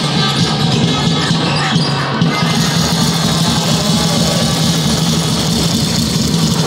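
Basketball arena din: a ball bouncing on the hardwood court in the first couple of seconds, over a steady wash of crowd noise and music filling the hall.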